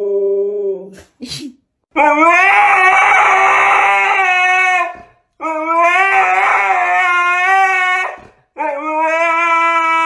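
Siberian huskies howling: one howl ends about a second in, then, after a brief gap, a husky gives three long howls of about three seconds each, each holding a fairly steady pitch.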